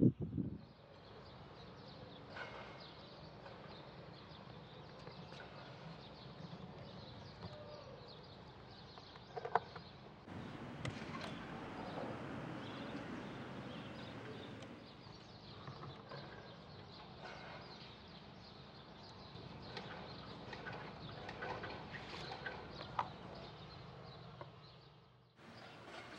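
Faint outdoor background with a few sharp clicks and knocks of handling as a portable suitcase record player's lid is opened and a clear vinyl record is set on the platter.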